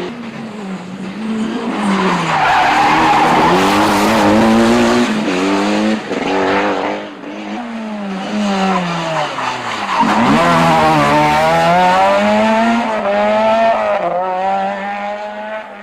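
Rally car engine revving hard through gear changes, its pitch climbing and dropping again and again. About ten seconds in, the pitch falls low, then climbs back up.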